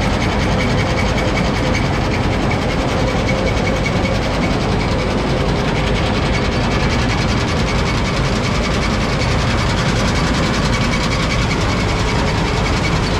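Header running steadily, its wobble box driving the sickle back and forth very fast: a loud, continuous mechanical clatter over the running engine.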